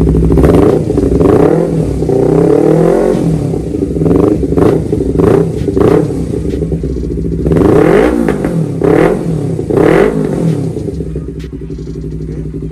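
Honda CBR250RR parallel-twin engine revved repeatedly through an R9 H2SS aftermarket exhaust with its dB killer removed: about nine throttle blips, each rising and falling back, then dropping to idle near the end.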